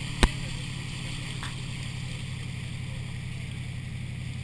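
Inboard engine of a Hacker-Craft wooden runabout running steadily under way, with the rush of water and wind along the hull. One sharp knock about a quarter second in.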